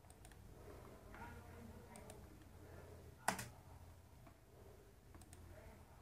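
Near silence with a low room hum, broken by a single sharp computer mouse click about three seconds in.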